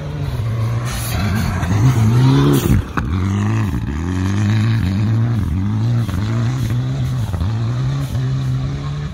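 Rally car engine under hard throttle on a loose dirt stage, its pitch rising and dropping over and over as it is driven through a corner and away. The engine is loudest about two seconds in, and a single sharp crack comes about three seconds in.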